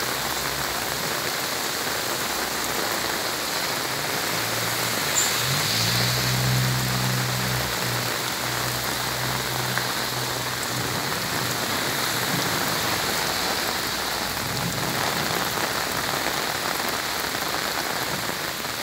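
Heavy rain pouring down steadily onto flooded streets, a dense, even hiss.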